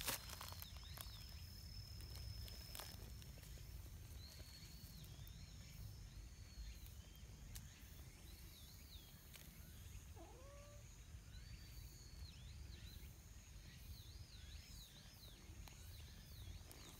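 Faint single short rising meow from a silver tabby cat about ten seconds in, over a near-quiet outdoor background with faint high chirping throughout.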